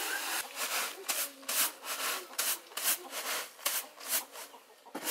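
Rice being husked by hand in a wooden mortar: a regular run of short swishing, grainy strokes, about two to three a second, as the husks are worked off the grain.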